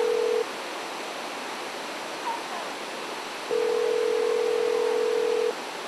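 Telephone ringing tone heard down the line: a steady single-pitch tone that stops about half a second in and sounds again for about two seconds from roughly three and a half seconds in, the outgoing call still ringing and not yet answered. A steady hiss of background noise runs beneath it.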